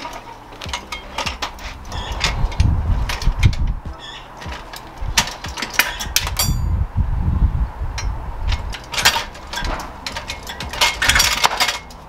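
Rabaconda tyre changer's lever arm being worked around a dirt bike wheel to pry the tyre off the rim: repeated metal clanks and clicks with heavy thumps of the tyre and stand. One clink rings on briefly about six and a half seconds in.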